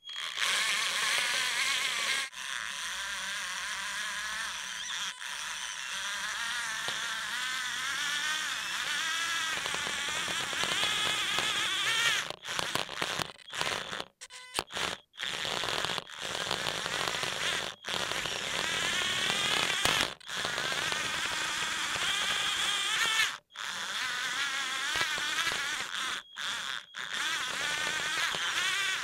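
Small electric motors and gearbox of a Tamiya tracked tank chassis whining as it drives, sped up to double speed. The pitch wavers up and down as it speeds and slows, and it cuts out briefly many times, more often in the second half, as the tank stops and starts.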